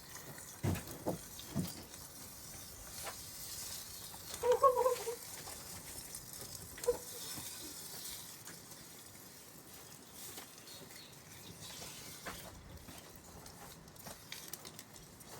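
Coffee maker filled with lighter fluid, its thermal fuse and thermostat bypassed, crackling and sputtering as the fluid boils inside, with a steady faint hiss. A few soft knocks come in the first two seconds, and a brief pitched squeal about four and a half seconds in.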